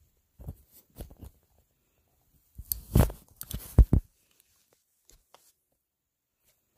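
Close handling noise: short rustles and clicks, then a louder burst of scraping and rustling with a few sharp knocks about three to four seconds in.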